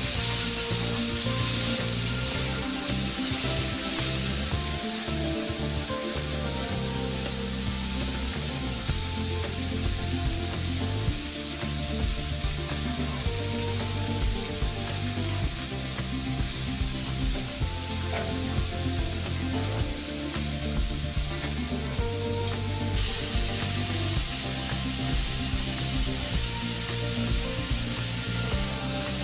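Diced potatoes sizzling in hot oil in a kadai, a steady hiss, with a metal spatula stirring them now and then. Soft background music plays underneath.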